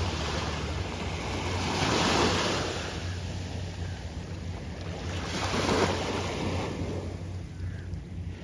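Small sea waves washing in at the water's edge, swelling about two seconds in and again near six seconds, over a steady low hum.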